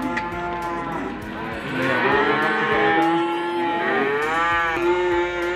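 Cattle mooing: several long, drawn-out calls that overlap, louder from about two seconds in.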